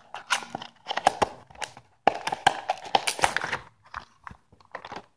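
Packaging being handled while fingerboard parts are unpacked: irregular crinkling and rustling of plastic wrapping with many small sharp clicks and knocks.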